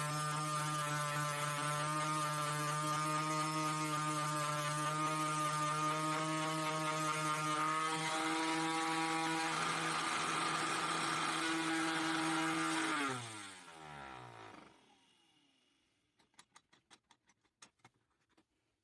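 Disc sander driven by a 24-volt 775 DC motor running with a steady high whine; a harsher hiss joins about eight seconds in. About thirteen seconds in the motor is switched off and its pitch falls as the disc spins down, followed by a few faint clicks.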